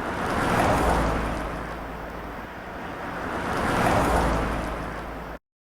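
Ocean waves washing in, two swells a few seconds apart. The sound cuts off suddenly near the end.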